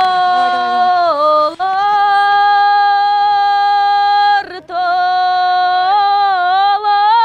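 A woman singing a Kyrgyz song solo in long held notes. She breaks briefly for breath about four and a half seconds in, and the pitch steps up near the end.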